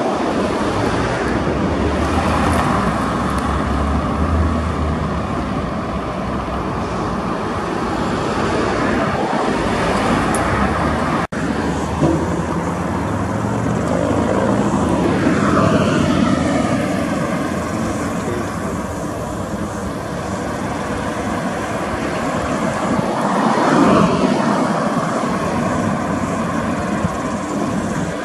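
Road traffic on a city street: cars and trucks driving past close by, the loudest passes about halfway through and again near the end, one with a falling pitch. Before that, a low engine rumble heard from inside a car waiting in traffic.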